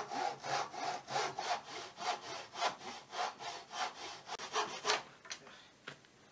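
Hand saw cutting through wooden timber in quick back-and-forth strokes, about three to four a second, stopping about five seconds in.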